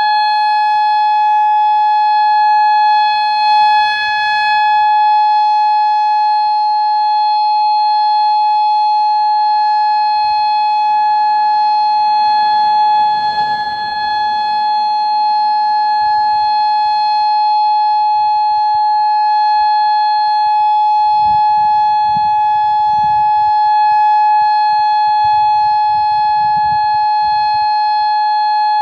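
Federal Signal Modulator MOD8032B electronic outdoor warning siren sounding a steady tone. The pitch holds level and unbroken throughout, with no rise or fall: the steady alert signal of a siren test.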